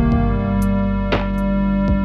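Background music: held keyboard chords with a few sharp percussive hits.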